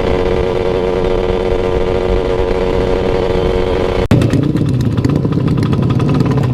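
Motorcycle engine running at steady high revs. About four seconds in there is an abrupt break, after which a lower, uneven engine note with a rapid pulsing carries on.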